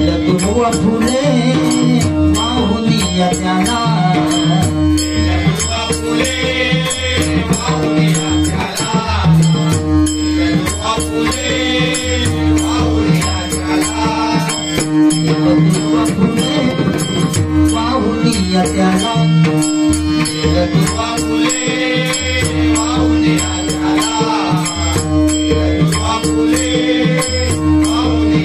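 Konkan devotional bhajan music: voices singing phrases over a steady held drone, with a fast, continuous rhythm of small hand cymbals and drumming.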